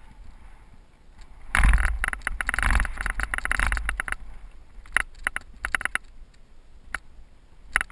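Cyclocross bike riding fast over dry dirt singletrack: the bike and its mounted camera rattle in quick clattering bursts over bumps, with wind rumbling on the microphone. The loudest, roughest stretch runs from about one and a half to four seconds in.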